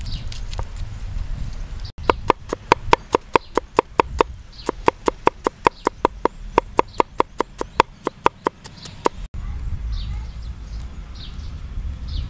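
A cleaver chopping garlic cloves on a wooden cutting board: a rapid, even run of knocks, about four a second, from about two seconds in until about nine seconds in. Faint bird chirps come before and after.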